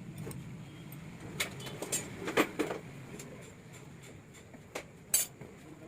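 Scattered sharp clinks and knocks of metal tools and engine parts being handled during two-stroke engine assembly, about half a dozen hits, the loudest a little past the middle and near the end. A low hum runs underneath.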